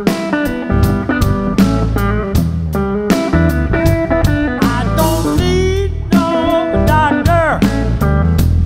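Live blues-rock band playing an instrumental passage: an electric guitar lead over a steady drum beat and bass, with bent notes in the second half.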